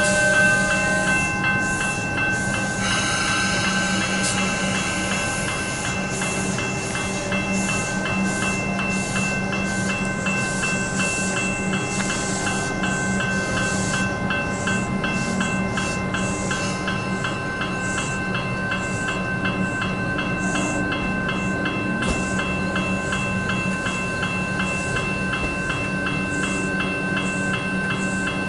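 Level-crossing bells, General Signals electronic E-Bells, ringing continuously in a fast even strike pattern, with an electric suburban train running through the crossing underneath.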